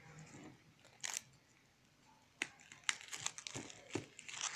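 Packaging crinkling and crackling as a smartphone box is handled and unwrapped: one sharp crackle about a second in, then a run of irregular crackles through the second half.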